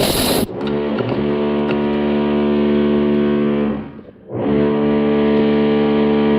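Background music: sustained, distorted electric guitar chords, each held for a few seconds and cut off sharply, with a short gap about two thirds of the way in.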